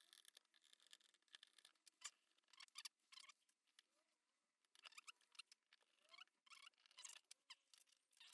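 Faint, irregular clicks and scratches of hard plastic RC car chassis parts being handled and fitted together, with a screwdriver turning screws into the chassis. There is a short lull about four seconds in.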